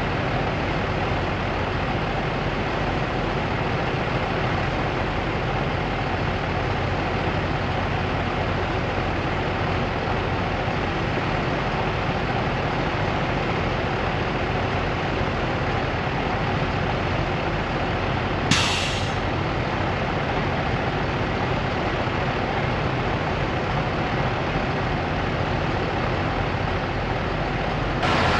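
Semi-truck diesel engine idling steadily close by. About eighteen seconds in, a short sharp hiss cuts across it.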